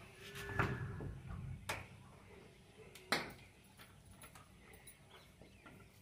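uPVC door handle and lock mechanism being worked, clicking sharply a few times, the loudest click about three seconds in, with low handling rumble in the first second.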